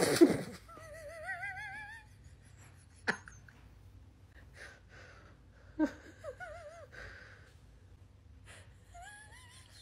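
Dachshund whining in high, wavering, upward-sliding notes: once for over a second, again about six seconds in, and briefly near the end. There are two sharp clicks in between, and a short loud burst at the very start.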